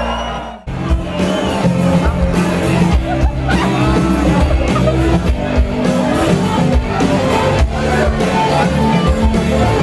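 Live rock band playing: drums, electric guitars and bass. Just over half a second in, the sound fades out and cuts straight back in to the band playing.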